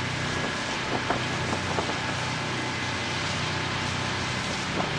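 High-speed catamaran ferry running at speed: a steady low engine drone under the rushing hiss of its spray and wind, with a faint steady whine above and a few brief clicks.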